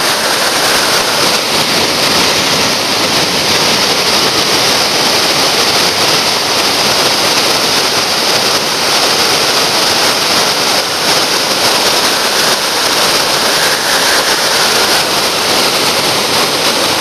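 Whitewater rapid pouring over rock ledges: a loud, steady rushing roar of falling water.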